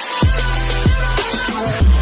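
Electronic background music with a heavy beat: deep bass hits that drop in pitch, landing a little under once a second, over held synth tones.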